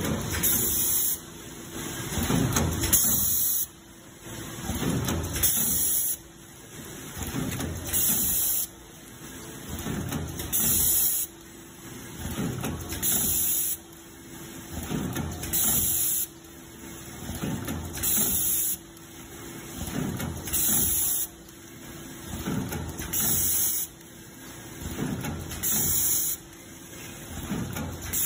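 BAOPACK VT52A vertical form-fill-seal powder packing machine making quad-seal bags, running in a steady cycle about every two and a half seconds. Each cycle has a mechanical rumble that builds and then cuts off, followed by a short hiss, with a faint steady hum underneath.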